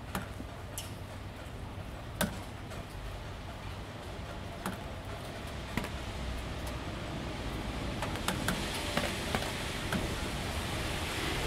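Light, steady rain with scattered single drips ticking on corrugated roof panels, a drop landing every second or so, the patter growing slightly louder near the end.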